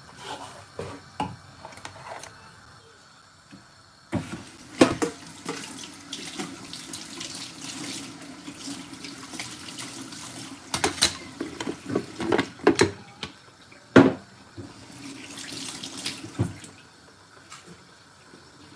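Kitchen tap running into a sink, turned on about four seconds in and off some twelve seconds later, with a few sharp knocks while it runs.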